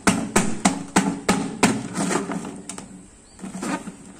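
A hand striking and punching through a thin crinkly metallic foil sheet: a run of sharp crackling knocks, about three a second for the first two seconds, then weaker crackling and tearing of the foil.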